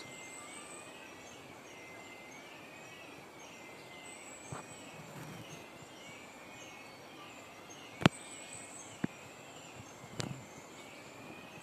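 Forest ambience: a steady high insect whine, and a short falling chirp repeated about twice a second from an unseen bird or insect. It is the strange sound being listened for. A few sharp clicks come in the second half.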